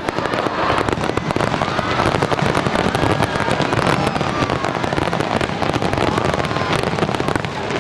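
Aerial firework shells bursting in a rapid, dense barrage, a continuous string of bangs and crackles with no pause.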